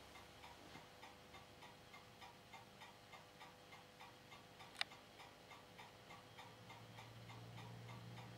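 Ania 5 filmstrip projector running: faint, even ticking about three times a second over a low steady hum. One sharp click comes a little past halfway, and a deeper hum swells in near the end.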